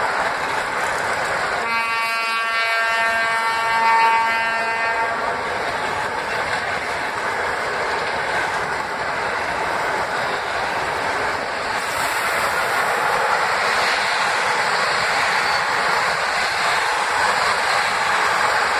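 Freight train of flat wagons loaded with concrete sleepers and rails rolling past, a steady noise of wheels on rails. About two seconds in, a horn sounds for about three seconds over it.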